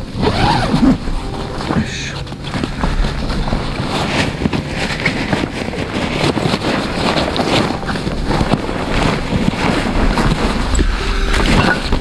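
The canvas storage bag of a tent-Mark Circus TC polycotton tent and the tent fabric rustle and scrape as the bag is unbuckled and unzipped and the tent is dragged out. It is a dense, continuous run of crinkly handling noises.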